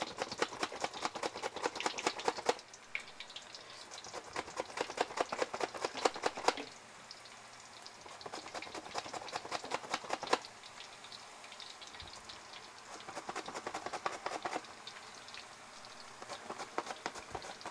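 Green plantain being sliced on a hand mandoline straight into a pot of hot oil: quick scraping strokes come in about five bursts of a couple of seconds with short pauses between, over the sizzle and crackle of the frying oil as the slices drop in.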